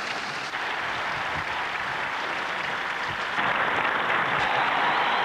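Large crowd applauding, a dense steady clapping that grows louder about three and a half seconds in.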